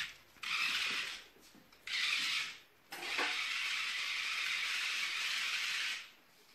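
Small radio-controlled toy car's electric motor and plastic gears whirring in three bursts: two short ones, then one of about three seconds.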